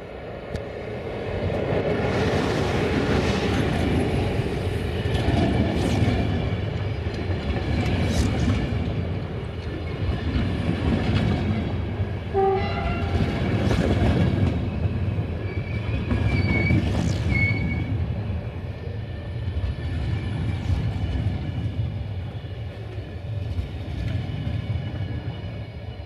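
Electric passenger train, a CFR 060-EA locomotive and its coaches, passing close by: a loud, steady rumble of wheels on rail with clickety-clack over the joints that builds up about two seconds in. Brief wheel squeals sound around the middle, and the rumble drops off near the end as the last coach moves away.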